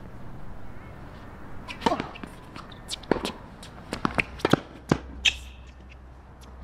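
Tennis ball being struck by racket strings and bouncing on a hard court during a rally: a series of sharp hits, thickest about four to five seconds in.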